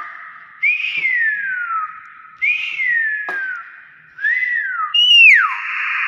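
Common hill myna whistling: four loud whistles, each rising briefly and then sliding down in pitch, like a wolf whistle. The last one is the loudest and falls most steeply.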